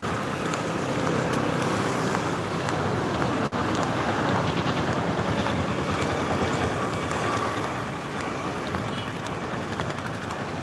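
Steady busy-street noise with vehicle traffic, heard through wind and rubbing on a hand-held phone microphone.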